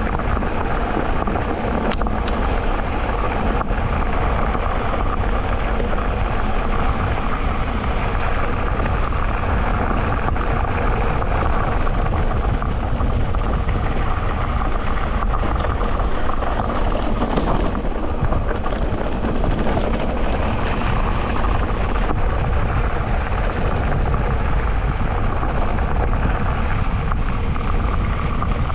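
Electric mountain bike riding a dirt trail: steady rushing of tyres and rattling of the bike, with a constant drone underneath.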